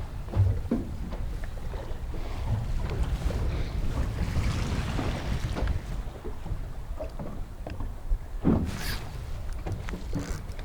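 Wind buffeting the microphone over a low rumble of water against a small boat, with scattered light knocks and one sharper knock about eight and a half seconds in.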